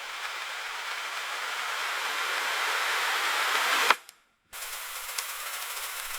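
Grain bin aeration fan running: a steady rush of moving air that grows slightly louder, then cuts off with a sharp click about four seconds in. After half a second of silence the airy rush resumes, quieter.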